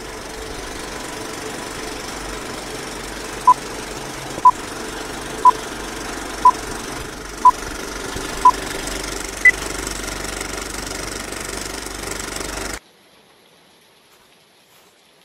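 Film countdown-leader sound effect: a film projector runs with a steady clatter while six short beeps sound one second apart, then one higher beep. The projector sound cuts off suddenly about thirteen seconds in.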